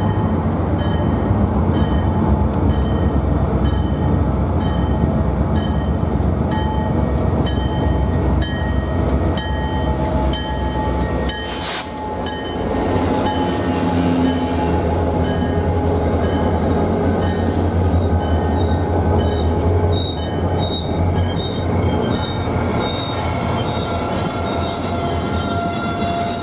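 Rocky Mountaineer passenger train passing close by: the diesel locomotive's engine rumbles deep and steady as it approaches and goes past, then the coaches roll by on the rails. A high ringing repeats about every two-thirds of a second through the first half.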